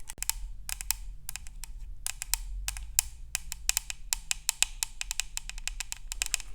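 Quick, irregular tapping on a drinking cup, several light, sharp taps a second.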